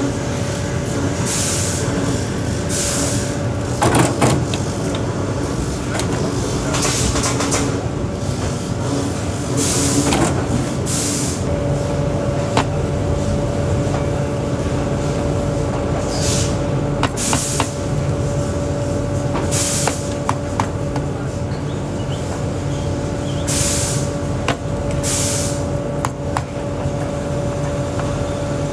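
Pneumatic shoe-lasting machinery running with a steady hum, with short hisses of compressed air every few seconds. A few light sharp taps sound between them.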